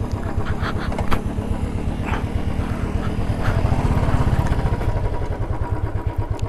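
Royal Enfield single-cylinder engine running steadily at low speed with a deep, even beat, heard from the rider's seat on a rough dirt track. A few short knocks are heard about one, two and three and a half seconds in.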